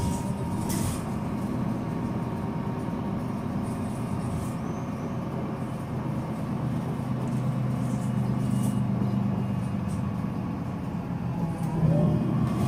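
The DAF 9.2-litre horizontal six-cylinder turbodiesel of a Solaris Urbino 12 III city bus idling steadily with a diesel clatter at low revs. The engine note swells briefly near the end.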